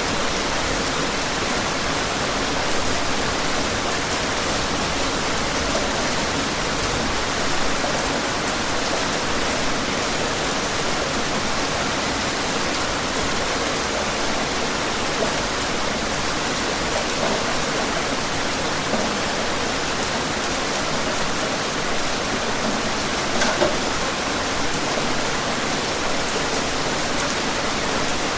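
Steady rain falling: a dense, even hiss of countless drops, with a couple of slightly louder spatters a little after two-thirds of the way through.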